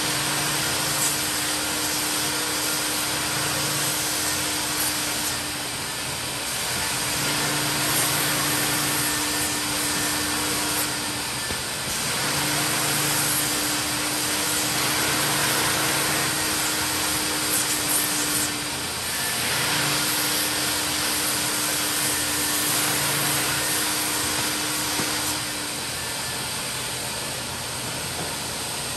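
Mytee Lite 8070 carpet extractor running, its vacuum motor giving a steady loud rush as the hand tool sucks water out of a carpeted car floor mat. A steady hum runs under it and breaks off briefly four times.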